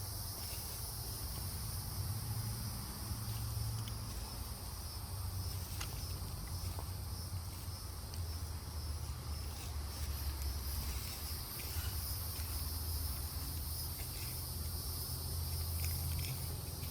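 Outdoor ambience: a steady high hiss over a low rumble, with a few faint clicks.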